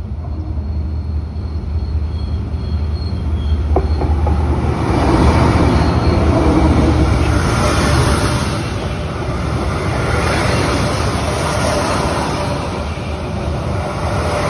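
D19E diesel-electric locomotive approaching and passing close by, its engine running with a steady low hum. From about five seconds in, the loud rolling noise of the carriages' wheels on the rails builds up and carries on. There is a single sharp knock shortly before the carriages reach the microphone.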